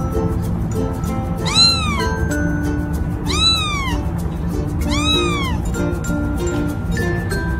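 Ginger kitten meowing three times, high-pitched calls that each rise and then fall, with background music playing underneath.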